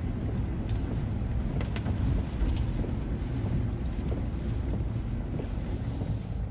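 Low, steady rumble of a truck driving slowly on a wet street, heard from inside the cab, mixed with gusty hurricane wind and rain noise and a few faint ticks.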